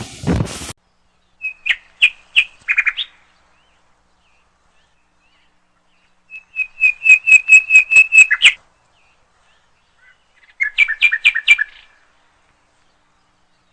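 A bird calling in three bursts of rapid, evenly repeated high chirps, the middle burst the longest at around a dozen notes.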